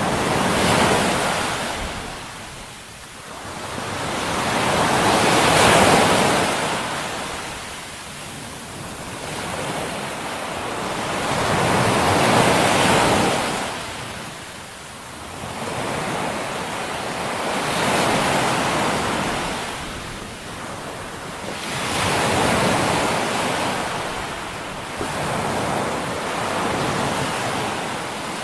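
Ocean waves washing in, the surf noise swelling up and falling away slowly about every five to six seconds.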